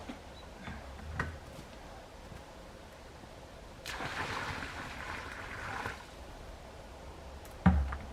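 Water splashing for about two seconds in the middle, with a few light knocks before it and one sharp, loud thump near the end.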